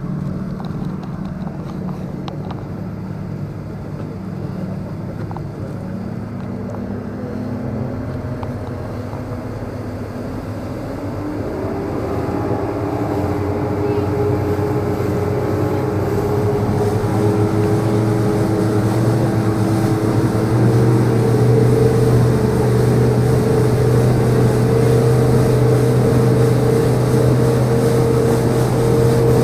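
Speedboat's outboard engines running steadily, then rising in pitch and getting louder partway through as the throttle opens, before holding at a steady high note.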